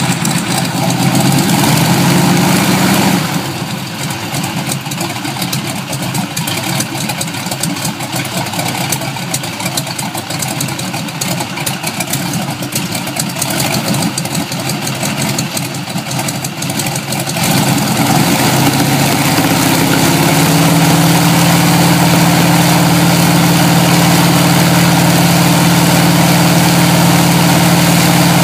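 Jacobs radial aircraft engine running on a test stand, spinning its propeller. It runs fast for a few seconds, drops back to a lumpy low-speed run with distinct firing beats, then is opened up again about two-thirds of the way in and holds a loud, steady high-rpm drone.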